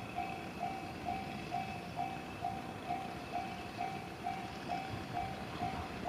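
Japanese railway level-crossing warning alarm ringing: an electronic bell tone repeating evenly, a little over two dings a second, over a low rumble.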